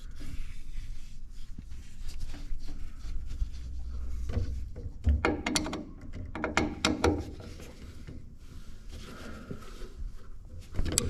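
Scattered light knocks, clicks and rubbing from handling the boiler's internal parts, with a denser run of knocks about five to seven seconds in, over a low handling rumble.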